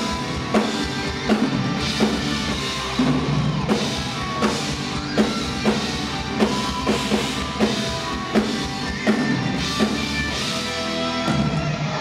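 Hard rock band playing live: a drum kit keeping a steady heavy beat, with strong hits about every three-quarters of a second, under electric guitar.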